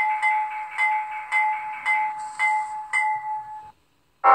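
Locomotive bell sound from a LokSound V4 DCC sound decoder in an Athearn Union Pacific gas turbine model, played through the model's small speaker. The bell rings about twice a second with a clear two-note ring, then stops shortly before the end.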